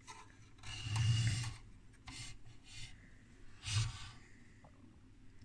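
Faint handling noise: three soft rubbing sounds about a second apart, the first the longest.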